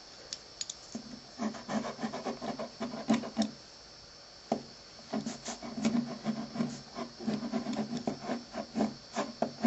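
A pen scribbling and rubbing on paper in quick, irregular strokes, in two spells with a short pause about halfway through.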